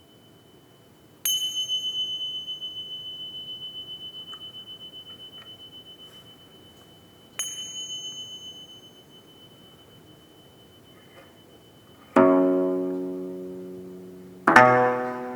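A singing bowl is struck twice, six seconds apart, each strike ringing a high, long-decaying tone that wavers slowly in loudness. Near the end two low plucked notes sound on a jeongak gayageum (Korean twelve-string zither), each decaying slowly.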